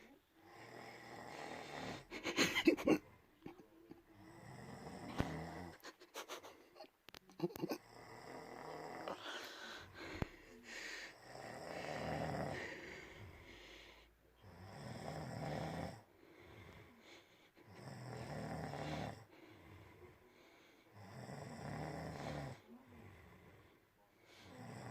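A man snoring in his sleep, one long snore about every three to four seconds. Sharper, louder crackles break in around two and a half seconds in and again near eight seconds.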